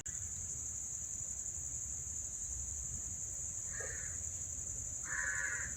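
Steady high-pitched insect chorus, with two short mid-pitched sounds breaking in, about four and five seconds in.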